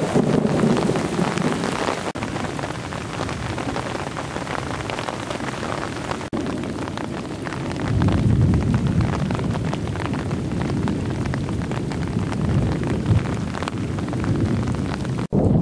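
Heavy rain pouring onto a flooded street and pooled water, a dense steady hiss full of fine pattering. A deeper rumble swells about eight seconds in, and the sound drops out briefly a few times.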